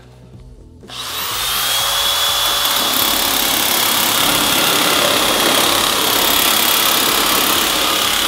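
Makita sheet metal nibbler cutting aluminium sheet. It starts about a second in and runs steadily under load, with a high whine over the noise of the cutting.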